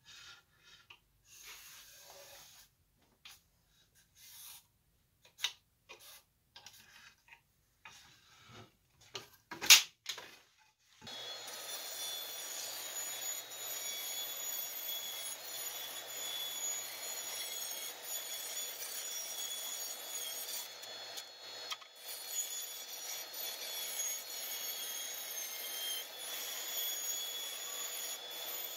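Porter-Cable bandsaw cutting a curved rocker out of a clear pine board: a steady blade noise with a fixed high whine, starting about eleven seconds in. Before it come scattered light knocks of wood being handled and one sharp click about ten seconds in.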